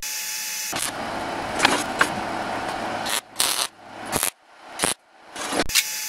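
MIG welder tacking steel parts together for fit-up: short bursts of crackling arc, several in a row with brief pauses between them in the second half.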